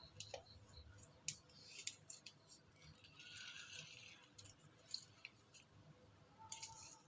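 Faint handling sounds of a lemon being squeezed by hand into a mixer jar: a few scattered light clicks and a soft squishing noise about three seconds in.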